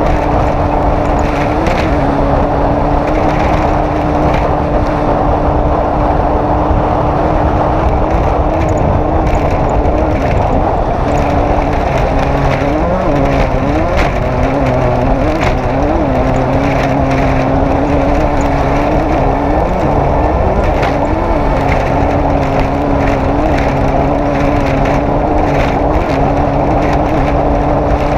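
Off-road race vehicle's engine running hard at a steady pitch, dipping and recovering several times in the middle, over a heavy rumble with scattered knocks and rattles.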